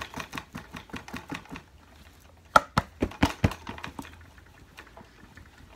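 Rapid, even clicking, about five ticks a second, as a hand works at the carpet pile. It fades out under two seconds in, followed by a few louder knocks a little before the middle, then only scattered faint ticks.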